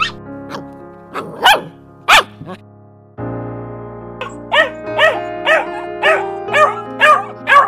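A dog barking: a few sharp, high barks, then a regular run of about eight barks, roughly two a second, over background music.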